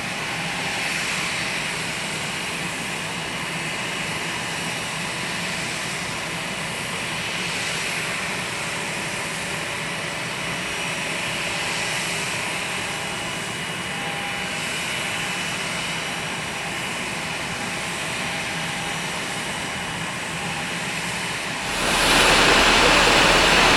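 Jet engines of an ANA Boeing 777-300 running with a steady whine, jumping much louder near the end.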